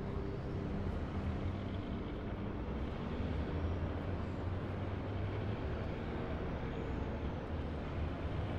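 Distant highway traffic: a steady low rumble of cars and trucks passing, with no single vehicle standing out.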